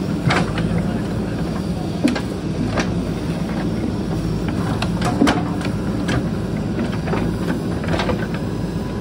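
JCB backhoe loader's diesel engine running steadily under work, with scattered sharp knocks and clanks. The loudest come about two and five seconds in.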